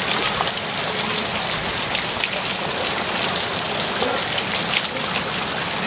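Heavy hurricane rain falling steadily on shallow, flowing floodwater: a constant dense hiss with many fine drop ticks.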